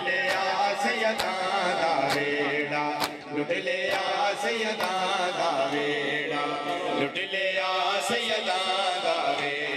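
Men chanting a Punjabi noha (Muharram lament) together, with sharp hand slaps on bare chests (matam) about once a second keeping the beat.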